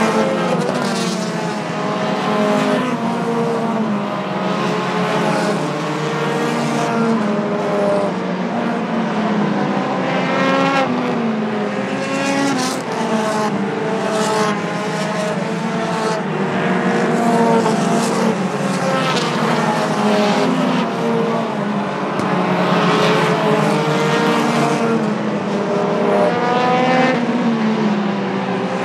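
A pack of pure stock race cars running laps on a short oval. Several engines overlap, their pitch rising and falling again and again as the cars accelerate, lift and pass by.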